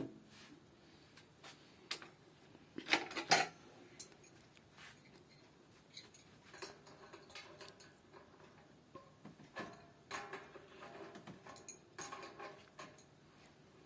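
Metal tools and faucet parts clinking and knocking as they are handled during a faucet washer repair, with the loudest clatter about three seconds in and a run of lighter clicks and scrapes later on.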